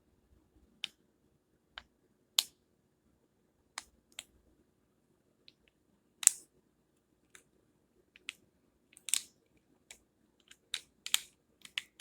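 Irregular sharp clicks and ticks of small plastic trap parts and packaging being handled, coming more often toward the end.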